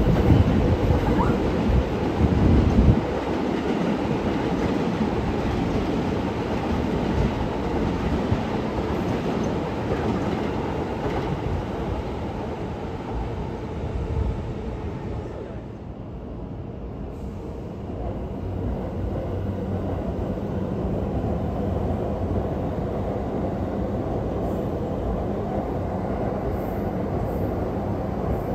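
Electric train running along the rails with a steady rumble and wheel noise, heaviest with low knocks in the first few seconds. It eases off for a moment around halfway, then the rumble steadies again.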